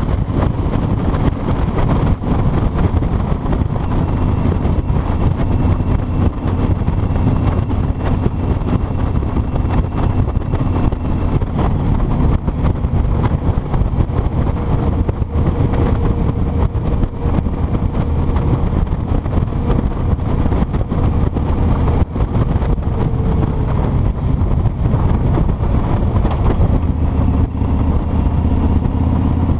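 Kawasaki Vulcan 2000's 2,053 cc V-twin engine running steadily while the motorcycle rides along the highway, with wind rushing over the microphone.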